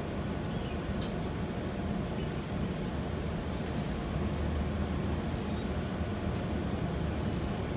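Steady low rumble of a King County Metro city bus heard from inside the cabin as it drives on a wet road, with a few faint clicks.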